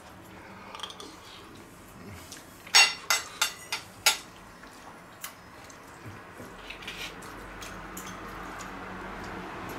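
Fork clinking against a plate, with a quick run of about five sharp clinks about three seconds in and a few fainter taps later.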